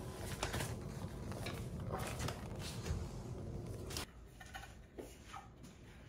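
Rustling and small knocks from hands handling a houseplant and its potting soil while repotting. About four seconds in, it drops to a quieter background with a few soft taps.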